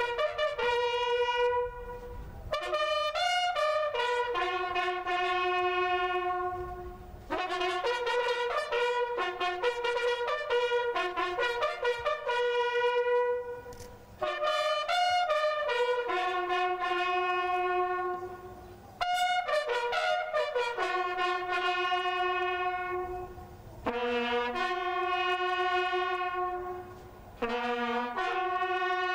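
Music: a solo brass instrument playing a slow call of long held notes in short phrases, with brief pauses between the phrases.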